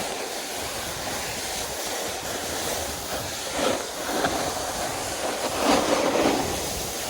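Wind buffeting a phone's microphone: a steady rushing noise with two louder gusts in the second half.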